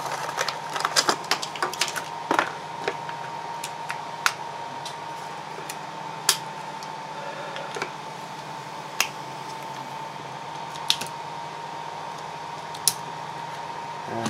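Crinkling and clicking of AA batteries being pulled from their plastic blister pack and snapped into a battery holder, thickest in the first three seconds, then single sharp clicks every couple of seconds. A steady high-pitched tone runs underneath.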